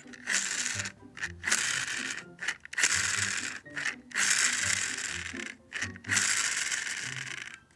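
A toy's plastic gear mechanism ratcheting in five rasping bursts of about a second each, over background music.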